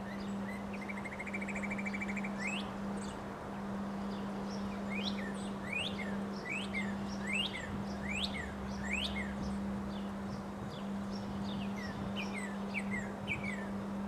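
Small birds chirping: a short rapid trill near the start, then a run of quick, sharply sweeping chirps. Under them are a steady low hum and a constant background rush of noise.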